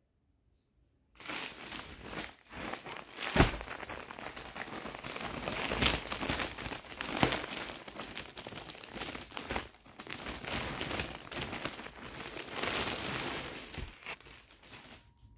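Clear plastic packaging crinkling and rustling as it is handled and pulled apart. It starts about a second in, goes on unevenly with a few sharper crackles, and fades near the end.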